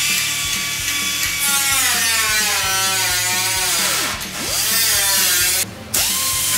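Angle grinder grinding the steel of a Mk2 Ford Escort's rear bodywork. Its whine sags deeply in pitch about two-thirds of the way through as the disc is pressed into the metal, then picks back up. It cuts out briefly near the end and spins up again.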